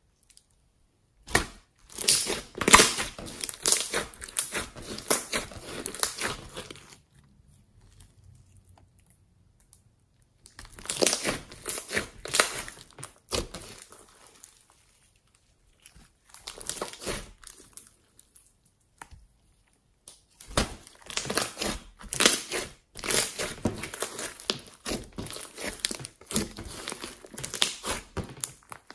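Green slime being pressed, squeezed and stretched by hand, giving many small crackles and pops. The sound comes in several bursts of a few seconds each, with silent gaps between them.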